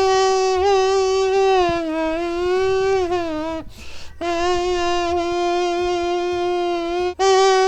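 A long held droning note with many overtones, wavering slightly in pitch. It breaks off for a short breathy gap about four seconds in, then is held again.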